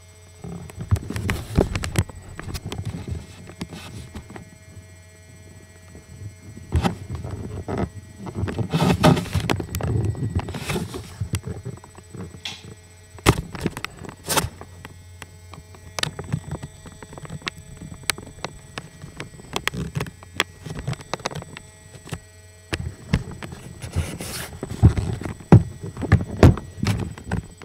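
Irregular knocks, rubs and clicks of handling noise from a camera being carried and swung around, over a steady electrical hum.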